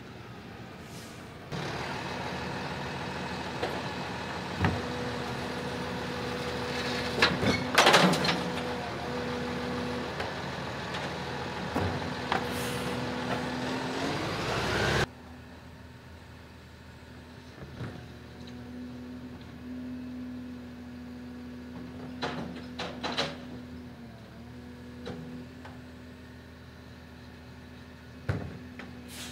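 Automated side-loading rubbish truck running with a steady mechanical hum, broken by sharp metallic clanks and knocks as its arm grabs and handles a wheelie bin. The sound is louder in the first half and drops sharply about halfway, with the hum and occasional clanks carrying on more quietly.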